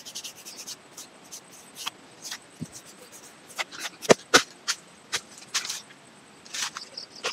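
Irregular short scratches and clicks of a small hand tool scoring a ring into lychee tree bark (girdling), with two sharper clicks about four seconds in.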